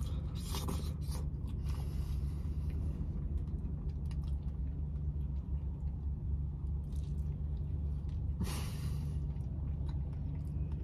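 A person biting into and chewing a roast beef and cheddar sandwich, with two louder noisy bursts, about a second in and near the end, over a steady low rumble.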